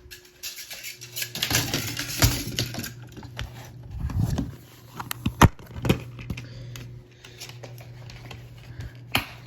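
Handling of a DVD case and disc: rustling, then a series of separate sharp plastic clicks and knocks, with a low steady hum under the middle stretch.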